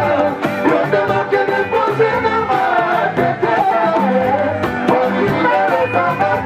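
Music with a singing voice over a steady beat.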